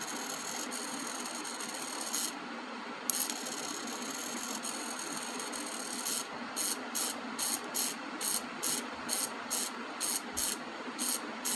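Hobby servo motor buzzing as its motor and plastic gears drive the arm through a sweep. First come two long steady runs a second apart; from about halfway on it moves in short, regular bursts about three a second.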